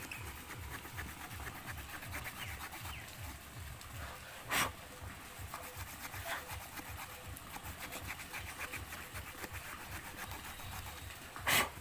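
The small wood saw of a Victorinox Huntsman Swiss Army knife sawing back and forth through a thick, very hard branch: an even rhythm of rasping strokes, about three a second. Two short, louder noises stand out, one near the middle and one at the end.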